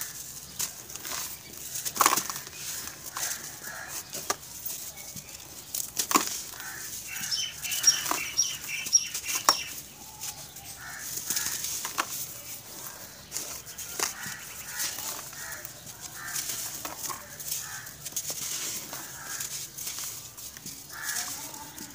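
Hands crushing and crumbling dry, gritty grey clods of earth, with sharp crunches over a steady sandy rustle of loose grit. Several louder crunches stand out, about 2, 6, 8 and 9.5 seconds in.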